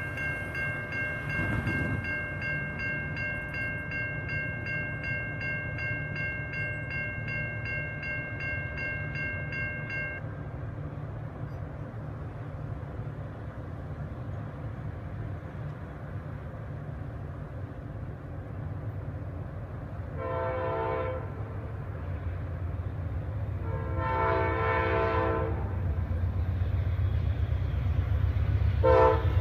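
Amtrak diesel locomotive pulling a train out of a station. A bell rings about twice a second for the first ten seconds over a low engine rumble that grows louder. The air horn then sounds two long blasts and a short one near the end.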